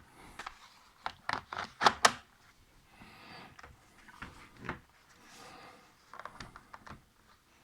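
Plastic clicks and knocks of a laptop battery being fitted and latched into a ThinkPad T440p, the sharpest clicks bunched in the first two seconds. Softer sliding scrapes and a few lighter clicks follow.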